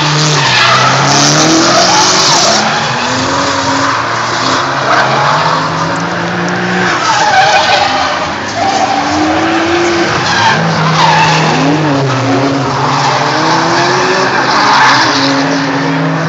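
Drift car engines revving hard, their pitch climbing, falling back and holding as the cars slide, over the screech of tyres.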